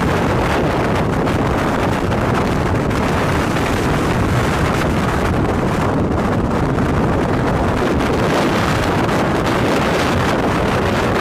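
Steady, loud rush of strong wind and road noise heard from inside a moving vehicle near a tornado, with wind buffeting the microphone.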